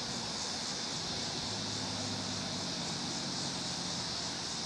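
Union Pacific diesel freight locomotives approaching from a distance: a faint low, steady engine drone that firms up about a second and a half in, under a steady high hiss.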